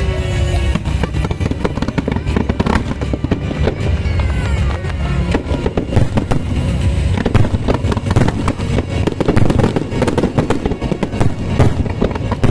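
Fireworks display: a dense, irregular run of bangs and crackles, with music playing underneath.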